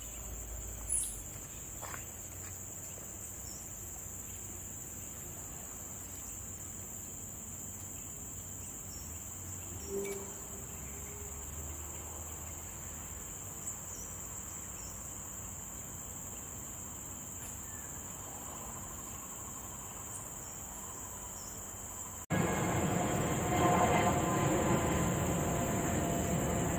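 Steady, high-pitched drone of a forest insect chorus. About 22 seconds in, a louder rushing noise comes in under it.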